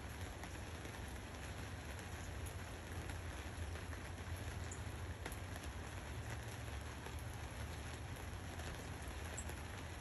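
Steady rain falling, an even patter with scattered individual drop ticks.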